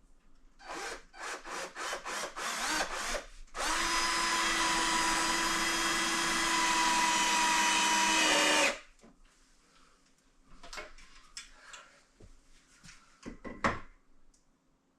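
Power drill driving a screw into a wooden door frame: a run of short trigger bursts, then a steady run of about five seconds that slows slightly as the screw bites in, followed by a few light knocks.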